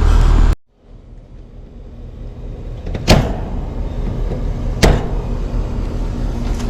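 The steady low hum of a running air-conditioning unit cuts off abruptly about half a second in. A quieter hum then slowly builds back, with two sharp clicks about three and five seconds in as the electrical parts are worked on.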